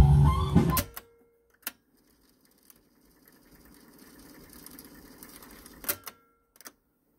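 Fisher cassette deck's tape music cut off by a piano-key click about a second in, then a second key click as rewind is engaged. The tape transport then whirs faintly as the reels rewind, building up slightly, until a loud key click near the end and a lighter click just after.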